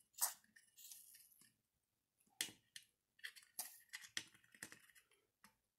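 Faint, scattered clicks and light taps from hands handling small parts and tools, a few of them coming close together about three to five seconds in.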